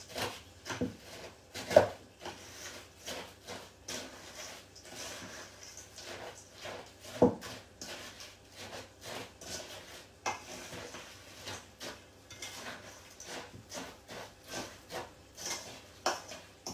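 Crushed dry biscuits being mixed into a chocolate mixture in a stainless steel bowl: irregular scraping, rubbing and clinking against the metal, with two sharper knocks about two and seven seconds in.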